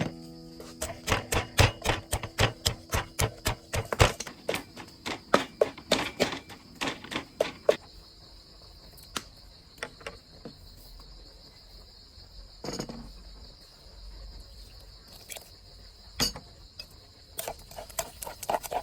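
A rapid run of sharp knocks, about three or four a second, for the first several seconds, then single knocks every few seconds and a short run near the end, like food being chopped or pounded. Crickets chirr steadily throughout.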